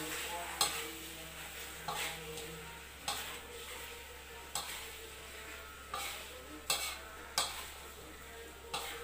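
Metal slotted spatula stirring eel pieces in a wok, clacking against the pan about eight times at irregular intervals, over a steady sizzle of frying.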